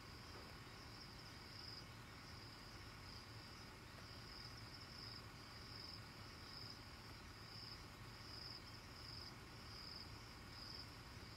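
Faint chorus of crickets at night: a high-pitched trilling that pulses about once a second without a break.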